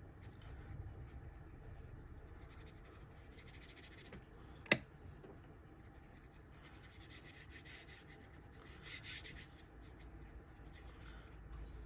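Faint scratching of a squirrel-hair watercolor brush stroking across watercolor paper, with one sharp click about five seconds in.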